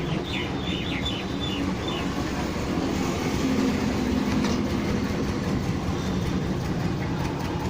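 Steady low rumble of vehicle noise, with an engine-like hum that grows a little louder in the middle.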